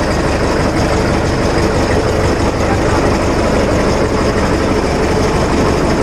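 Jessop road roller's diesel engine running steadily at close range, a loud, even low rumble with no change in pace.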